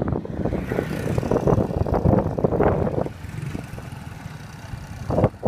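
Wind buffeting the microphone in uneven gusts. It eases to a lull about three seconds in and gusts again near the end.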